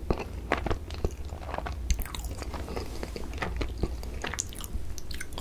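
Close-miked chewing of a mouthful of soft Korean cream bread, with many short mouth clicks throughout.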